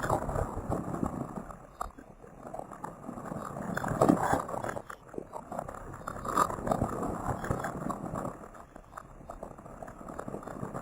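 Sound-design soundscape of crackling, rustling noise that swells and fades every couple of seconds, with scattered clicks.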